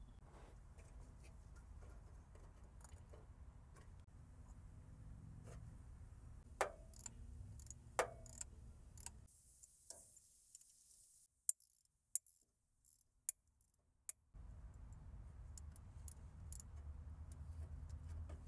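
Faint, scattered metallic clicks and clinks of hand tools and bolts as the thermostat housing is bolted onto the engine, with a couple of sharper knocks about six and a half and eight seconds in. For several seconds in the middle the sound drops almost to nothing apart from a few isolated clicks.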